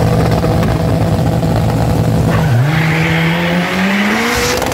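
Drag cars, an old VW Passat among them, held at high revs on the start line, then launching about two and a half seconds in: the engine note dips and climbs steadily as they accelerate away down the strip.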